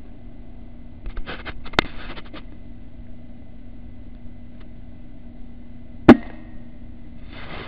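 Air rifle firing once about six seconds in: a single sharp crack, the loudest sound here. About two seconds in there is a short cluster of soft clicks and rustles with one sharper tick, over a faint steady hum.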